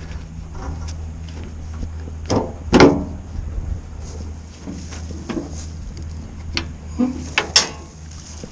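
Small engine running steadily, with a series of clunks and knocks over it, the loudest nearly three seconds in and a group of them near the end.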